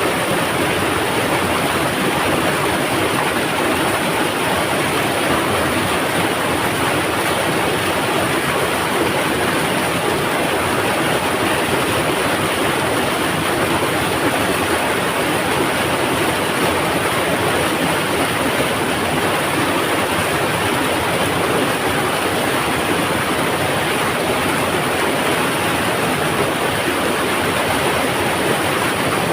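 Mountain river water rushing in a steady, unbroken rumble.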